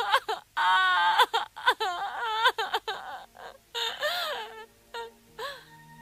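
A cartoon character's voice crying: a run of short sobs and wails that rise and fall in pitch and die away near the end. Soft music comes in during the second half.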